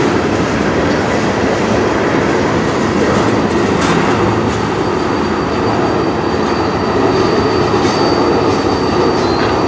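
Tank cars of a freight train rolling past: a steady rumble of steel wheels on the rails, with a few sharp clicks and a faint thin high whine. These are the last cars of the train going by.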